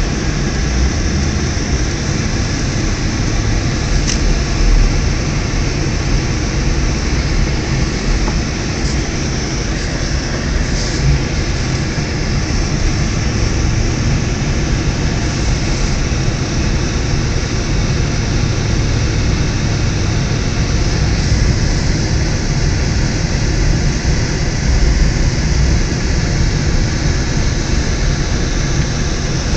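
Steady road and engine noise heard from inside a car's cabin while driving on snow-covered roads, a constant low rumble with the tyres' hiss over it.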